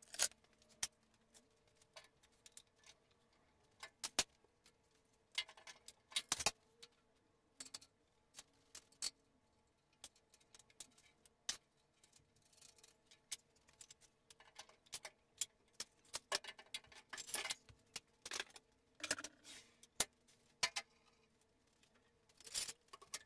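Scattered light clicks, knocks and metallic clattering of tools and parts being handled and set down on a concrete floor.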